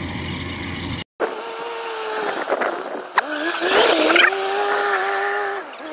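A combine harvester runs steadily for about a second. After a brief dropout, a farm cart's engine takes over with a steady whine that rises in pitch about halfway through and holds there as the cart, loaded with rice sacks, drives across the field.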